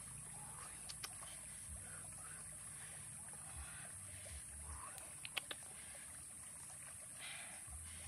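Wood fire under grilling fish crackling softly, with a few sharp pops, the loudest a quick pair about five and a half seconds in.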